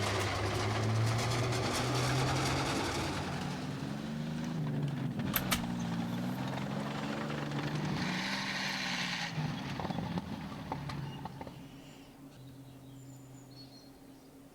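Heavy vehicle engine running, its pitch rising and falling, with a couple of sharp metallic clicks about five seconds in; it fades away after about eleven seconds.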